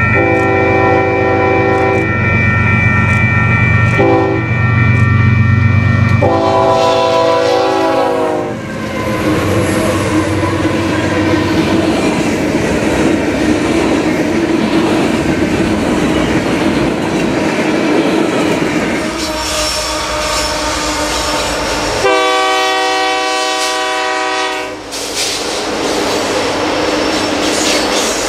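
Freight locomotive air horn sounding several blasts as the train comes on, the last one dropping in pitch as the locomotive passes; then the long rumble and clickety-clack of freight cars rolling by on the rails. Later another locomotive horn sounds one long blast of about three seconds, followed by more cars rolling past.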